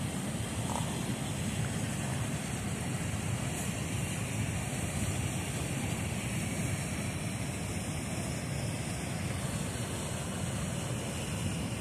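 Steady rushing of a fast-flowing river, with wind buffeting the microphone.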